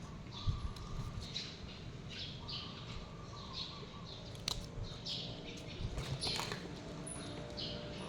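A bird chirping in the background, short high chirps repeated about once a second, with a few soft knocks of something being handled.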